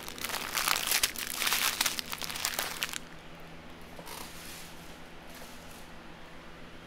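Small clear plastic bags of diamond painting drills crinkling as they are handled, loud for about three seconds, then fainter and sparser.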